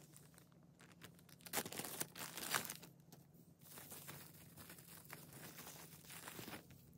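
Plastic packaging and bubble wrap crinkling and rustling in the hands as a beaded bracelet is unwrapped. It is loudest in a burst of handling from about a second and a half to three and a half seconds in, then continues more softly and stops near the end.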